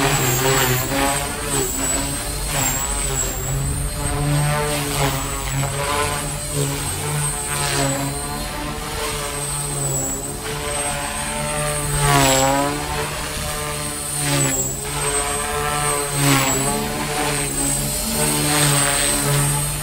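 Align T-Rex 300X electric RC helicopter in flight, doing manoeuvres: a steady high motor whine over the buzz of the spinning rotor blades. The sound swells and fades, with pitch sweeping up and down as the helicopter swoops past, loudest about twelve and sixteen seconds in.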